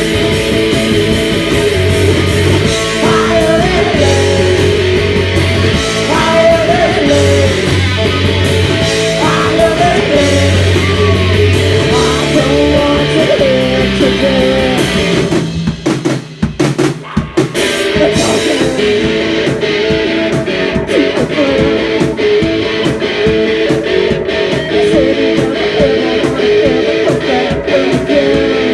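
Rock band playing live: electric guitar, bass and drum kit. The music drops out briefly about sixteen seconds in, then the full band comes straight back in.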